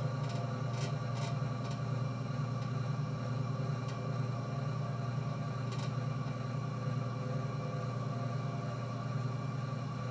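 Electric pottery wheel motor running with a steady hum, turned down to a slower speed for a tall cylinder, with a few faint ticks.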